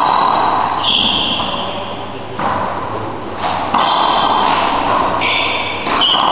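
A doubles handball rally in an enclosed court: the ball slaps sharply off hands and walls roughly every second, echoing in the hall, with short high squeaks of shoes on the wooden floor between the hits.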